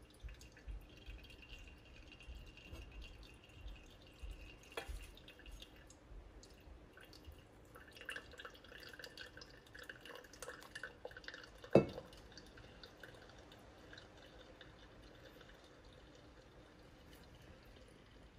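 Hot water poured in a thin stream from a gooseneck kettle onto coffee grounds in a paper-lined ceramic pour-over dripper, with coffee dripping into a glass server over ice. There is one sharp knock about twelve seconds in.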